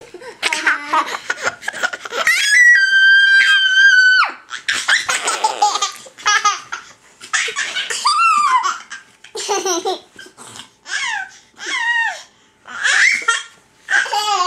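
Young children laughing and squealing during rough play. About two seconds in, one long high-pitched squeal is held for nearly two seconds, followed by repeated bursts of giggling laughter with falling pitch.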